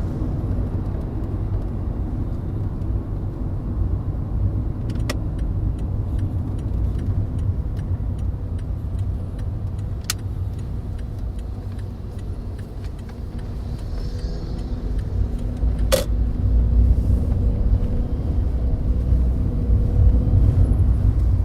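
In-cabin road and engine noise of a VW Polo Sedan driving on smooth asphalt: a steady low rumble with a few isolated sharp clicks, and no suspension or steering-rack knocks on the even surface. The rumble gets a little louder in the last few seconds.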